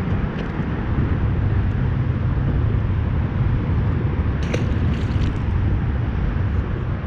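Steady low outdoor rumble, with a small splash about four and a half seconds in as a released crappie drops back into the water.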